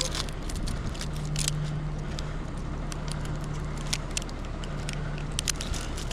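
Engine running steadily at low speed with a low hum, with scattered light clicks and rustles.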